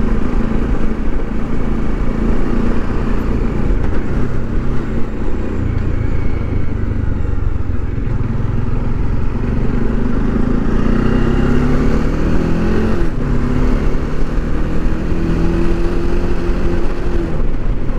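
Motorcycle engine running under way, with heavy wind noise on the microphone. About ten seconds in, the engine note climbs for a few seconds, breaks off briefly, then comes back and holds steady.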